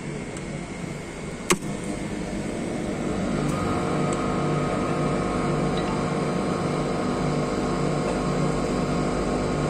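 Carrier reefer container refrigeration unit running with a steady hum. A single sharp contactor click comes about one and a half seconds in, and from about three seconds in the running sound grows louder and fuller as the compressor comes on.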